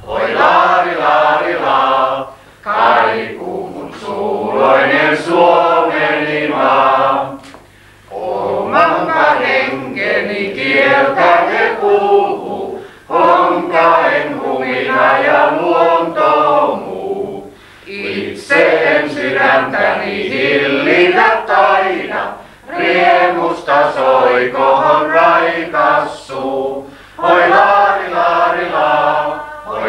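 A group of men and women singing together without accompaniment, in phrases of a few seconds with short breaks for breath between them.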